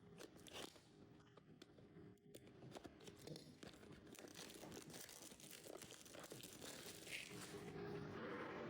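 Faint crinkling and tearing of the packaging of a trading card box as it is opened: many small crackles and clicks, growing a little louder toward the end.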